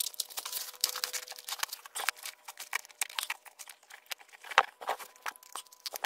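Foam tube pipe insulation rustling, crinkling and scraping as it is handled and pressed onto a copper pipe: a dense run of small, irregular crackles and scuffs.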